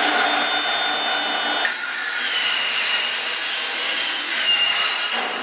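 Cordless circular saw for metal cutting through a metal drywall profile: a loud, steady high whine over a rasping cut. The whine drops slightly in pitch about two seconds in, and the sound fades near the end.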